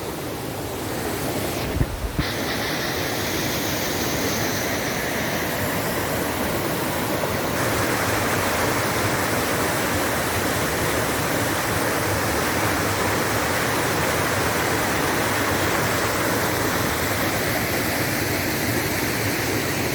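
Waterfall running heavily in rainy-season flood, with a steady rush of water and a foamy, swollen flow. A brief thump about two seconds in.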